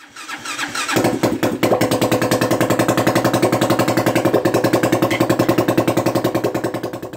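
200cc four-stroke single-cylinder CG-type motorcycle engine, built with a racing camshaft and a high-compression piston, catching about a second in and then running at a steady idle with an even, rapid firing beat. The sound fades out near the end.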